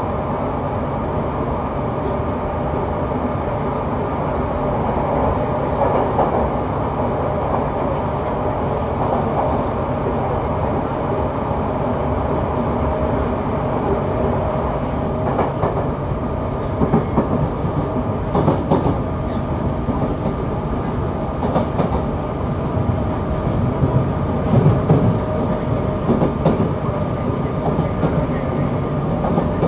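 Running sound of a Yokohama Municipal Subway 3000A subway car with Mitsubishi GTO-VVVF drive, heard on board in the tunnel: a steady rumble of wheels on rail with several held tones from the drive. Scattered clicks from rail joints come mostly in the second half.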